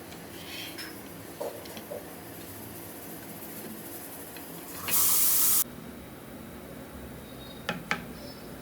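A single short spray, one burst of hiss lasting under a second, about five seconds in. A few light clicks and taps come before and after it.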